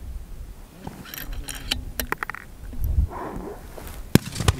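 Wind buffeting the microphone, with a few light mechanical clicks, then a single sharp crack of a fullbore target rifle shot about four seconds in, followed by a second, weaker report.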